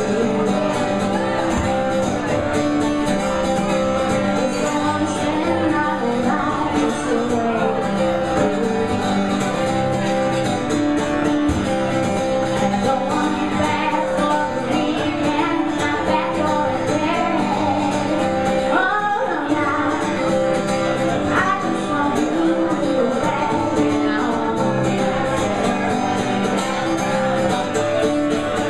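A woman singing while strumming an acoustic guitar, a live acoustic song performance with a steady strummed rhythm.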